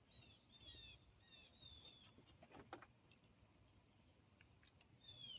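Near silence, with faint bird chirps: short falling chirps repeated through the first two seconds and again near the end. A few faint clicks about two and a half seconds in.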